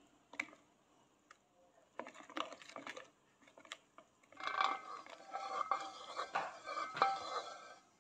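Wire whisk beating cake batter by hand in a plastic bowl. At first there are only a few light clicks; from about halfway through the wires clatter and scrape against the bowl in a quiet, continuous rapid stirring.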